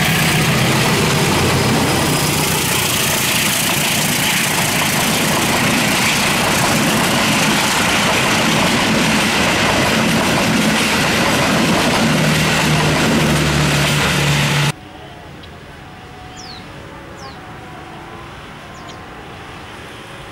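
Diesel-electric locomotive passing at speed at the head of a passenger train, its engine running under power, then the coaches rushing past with steady wheel-and-rail noise. About three-quarters through, the sound cuts off abruptly to a much quieter distant scene with a few short high chirps.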